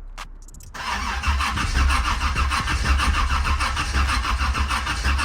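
Car engine being cranked over by its starter with a fast even beat, not catching, on a battery too weak to start it even with a jump box connected.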